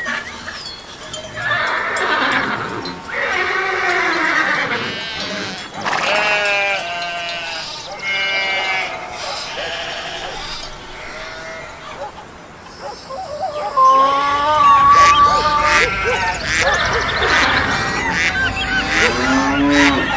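Farm animals bleating, many calls overlapping one another and getting louder about two-thirds of the way through.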